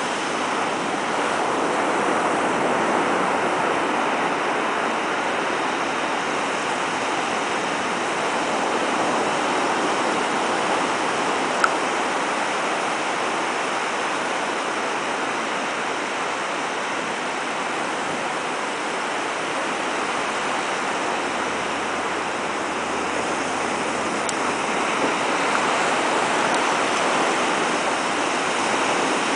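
Ocean surf breaking and washing up a sandy beach: a steady rush of water throughout, with one brief click about halfway through.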